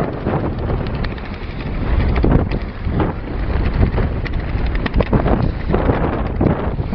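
Force 6 wind buffeting the microphone aboard a small sailing yacht: a loud, rough rushing noise that rises and falls in gusts.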